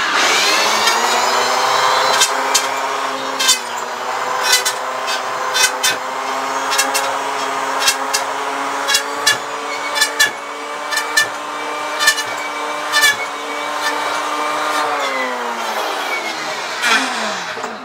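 Electric hand planer running at full speed with a steady whine, its cutter biting unevenly into the edge of a board in a series of sharp knocks. Near the end the motor is switched off and winds down, its pitch falling away.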